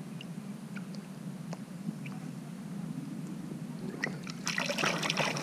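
Water dripping and lapping around a barbel held in the shallows. About four and a half seconds in comes a loud, busy splashing as the barbel is released and kicks away from the hand.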